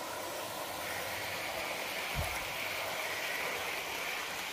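Model train of Pullman coaches rolling along garden railway track: a steady rolling noise of wheels on rail, with a single low thump about two seconds in.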